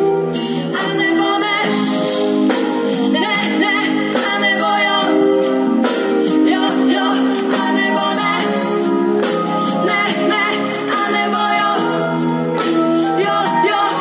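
Live pop band playing with a steady drum beat, electric guitar and keyboards under female lead vocals. The deep bass is missing.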